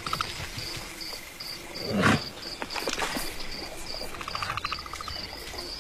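Savanna ambience of crickets chirping in a steady, even pulse, about two or three chirps a second. About two seconds in, a short, louder animal call falls in pitch, and near the end a brief rapid trill sounds.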